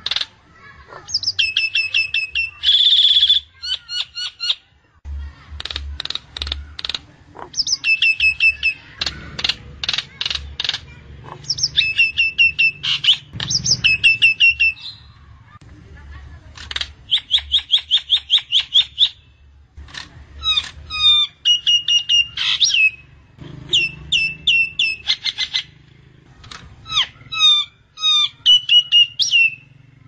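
Common myna calling: loud phrases of rapid, repeated chattering notes alternating with whistled notes that slide downward, broken by short pauses.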